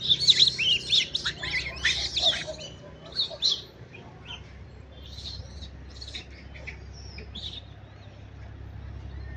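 Macaques screeching in a rapid series of high-pitched squeals as one chases another away from food, the alarm or fear screams of a squabble; the squeals are loudest in the first three and a half seconds, then fainter scattered calls follow.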